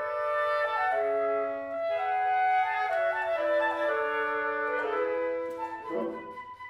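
Woodwind quintet playing slow held chords that change about once a second, with the flute and clarinet on top, breaking into shorter detached notes near the end.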